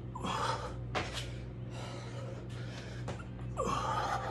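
A man breathing hard through push-up burpees, with several forceful gasping breaths about a second apart.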